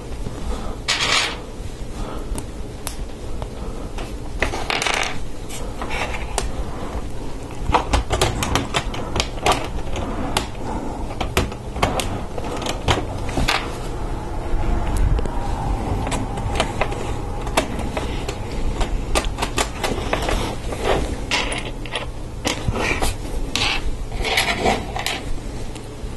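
Small hard plastic LEGO Technic parts clicking and clattering as they are handled, picked from the pile and pushed together. The clicks are many, sharp and irregular, with a few brief rustling bursts.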